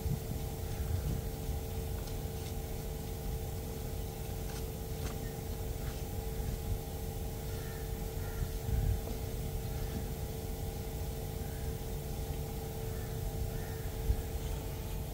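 Steady hum of outdoor misting fans spraying water mist, with a constant motor tone over a low, uneven rumble.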